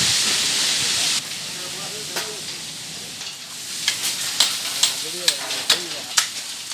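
Coal being unloaded from a truck by hand. A loose rushing hiss of coal sliding off cuts off about a second in, then sharp clacks come about two a second as hand tools strike the coal and the truck bed.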